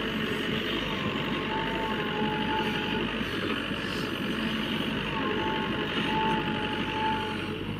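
A reversing alarm beeps over the steady running of a heavy machine's engine. The beeping comes in two spells, about a second and a half in and again about five seconds in.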